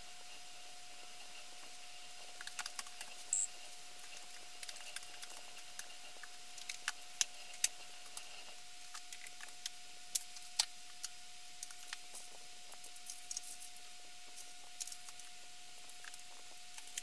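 Books being picked up and set down during sorting: scattered light taps and clicks at an uneven pace, over a faint steady hiss and a thin steady tone.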